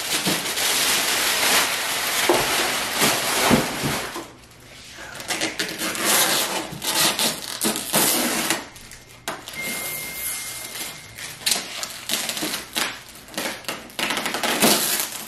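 Clear plastic wrapping film crinkling and crackling as it is peeled off a new inkjet printer, in a dense run of rustles and small snaps that eases off about four seconds in, then picks up again.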